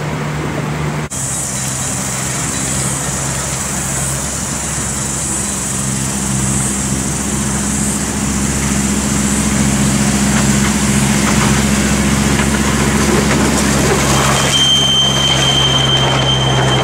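Miniature railway locomotive's engine running steadily and growing louder as the train approaches, then the passenger carriages rolling past. A thin, high, steady squeal joins in near the end.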